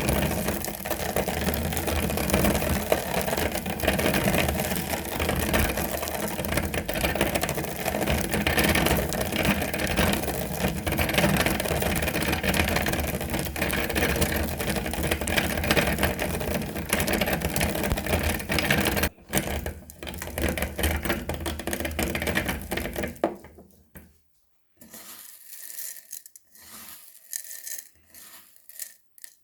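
Electric meat grinder running with a steady, rattling mechanical noise as it works through spaghetti. It breaks off for an instant, runs on, then stops about 23 seconds in, leaving quieter scattered handling sounds.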